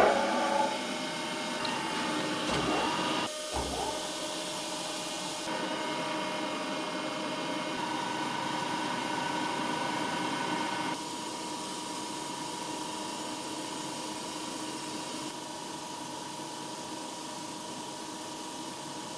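TOS BUAJ 28 cylindrical grinder running, a steady machine hum with a whine, with a loud clunk right at the start as its control-panel buttons are pressed. Later it grinds a small arbor with coolant flowing over the wheel.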